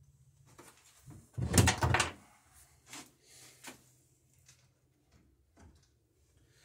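A short burst of clattering knocks about a second and a half in, then a few lighter separate knocks.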